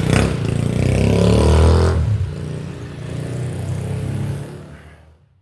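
A motor vehicle's engine revving as it pulls away, its pitch rising over the first two seconds, then running lower and fading out near the end.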